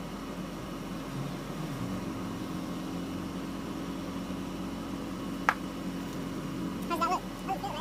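Toyota Tacoma's V6 engine idling steadily, with one sharp click about five and a half seconds in and a few short chirps near the end.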